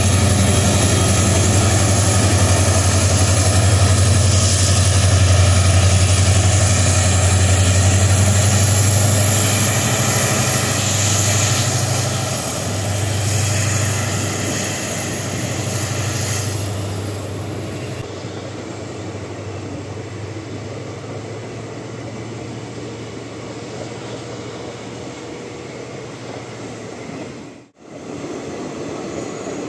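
EMD WDP4B diesel-electric locomotive's two-stroke V16 engine passing with a deep, steady drone and a high whine, which ease off about halfway through. Passenger coaches then roll past on the rails with a lower, even running noise. Near the end the sound drops out for an instant.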